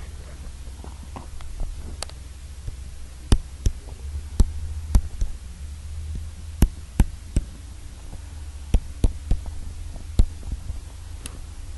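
A steady low hum with about fifteen sharp clicks or taps at irregular spacing, some in quick pairs and threes.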